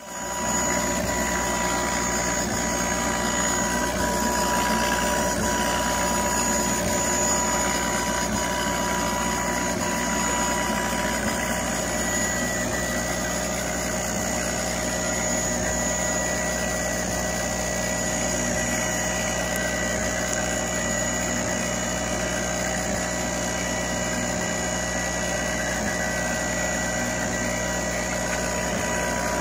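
Full Spectrum MLE-40 CO2 laser engraver running during an engraving job: a steady machine hum with several high, unchanging whining tones, level throughout.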